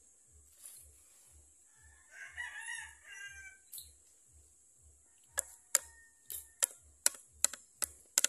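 A rooster crows once, about two seconds in. From about five seconds in comes a quick run of sharp clicks, about three a second, louder than the crow, over a steady high hiss.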